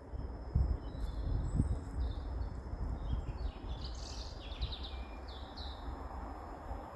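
Small birds chirping and singing over a low steady rumble, with a few low thumps in the first couple of seconds.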